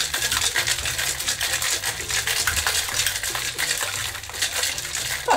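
Ice rattling inside a metal cocktail shaker shaken hard and fast, a dense continuous clatter, mixing and chilling the drink.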